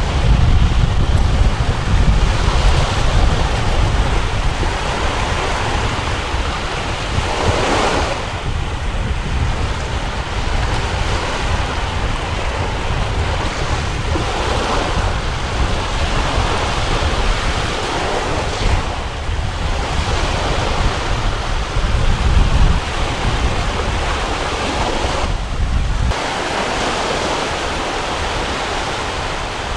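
Strong wind buffeting the microphone over the wash of a choppy sea, with the surf swelling every few seconds. The low wind rumble eases near the end.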